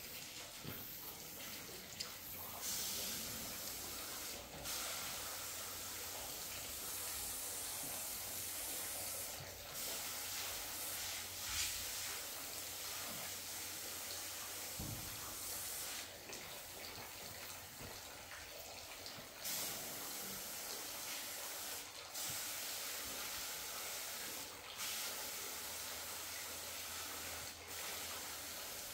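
A paint spray gun on a hose hissing in long bursts, cutting out briefly every few seconds, over a low steady hum.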